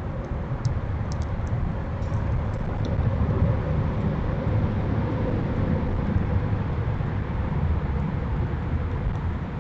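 Steady low outdoor rumble of background noise, with a few faint, short, high bird chirps in the first two seconds.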